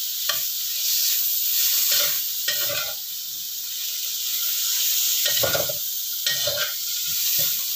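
Pre-boiled beef cubes and spice paste sizzling in oil in a wok. A metal spatula scrapes and tosses them against the pan in short, irregular strokes.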